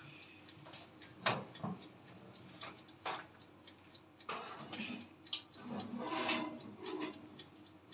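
Metal loaf pan going onto the wire rack of a toaster oven: scattered light clinks and knocks of metal on metal, with short scrapes as the pan slides in.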